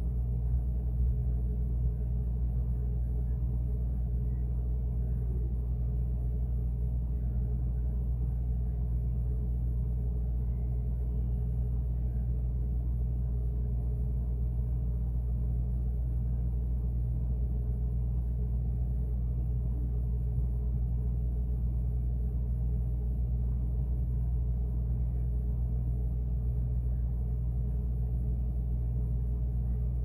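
Refrigerator running: a steady low hum, heard from inside the closed fridge.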